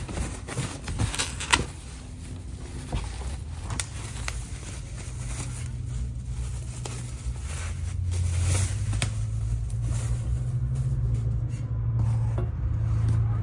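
Foam packing sheet and bubble wrap rustling and crinkling as they are pulled out of a cardboard box, with short crackles throughout. Under it a low vehicle engine rumble that gets louder in the second half.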